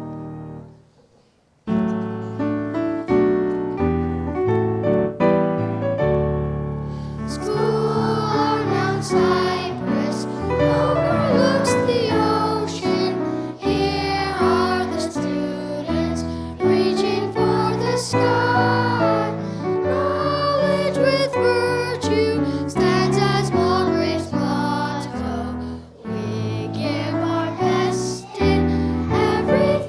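After a brief pause, a piano plays alone for a few seconds, then young voices join in singing a song with the piano accompanying.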